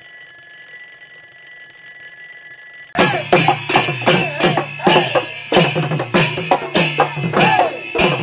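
A steady electronic ringing tone for about three seconds. It then cuts abruptly to loud Bihu husori music: driving drum beats, about three a second, with voices.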